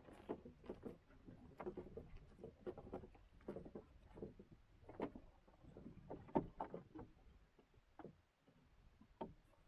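Small waves slapping and splashing irregularly against the hull of a 17-foot lug-rigged sailing yawl under way, several slaps a second, with a sharper one past the middle and a brief lull near the end.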